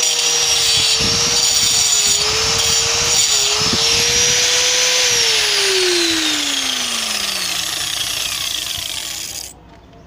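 Black+Decker angle grinder cutting into the mortar joint of a concrete-block wall, its motor whining steadily over a gritty grinding hiss. About five seconds in the motor is released and the whine falls steadily in pitch as the disc winds down. The sound cuts off sharply near the end.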